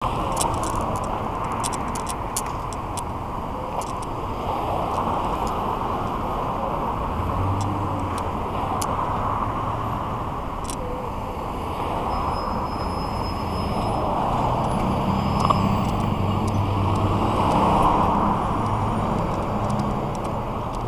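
City street traffic heard from a moving bicycle: a steady rush of passing cars, with a low vehicle engine hum coming in about a third of the way through and again, louder, in the last third, and scattered light clicks.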